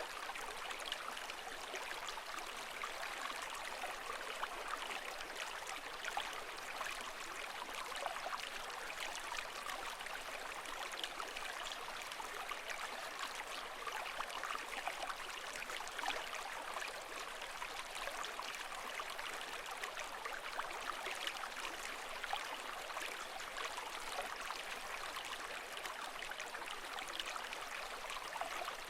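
Steady rush of moving water with a fine trickling crackle, even in level throughout, without the rise and fall of breaking waves.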